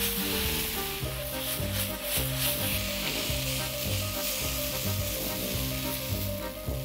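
Vegetable and mushroom stir-fry sizzling in a wok over a gas flame while a spatula stirs it, the filling being thickened with starch slurry. Background music with a walking bass line plays underneath.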